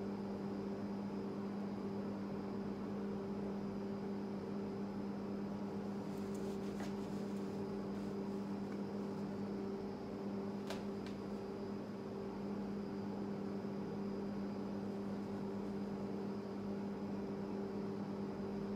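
Steady low machine hum with a higher overtone above it, unchanging throughout, and a single faint click about eleven seconds in.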